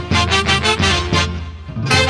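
Lively orquesta típica dance music with a steady beat; the band thins out and drops away briefly near the end, then comes back in full.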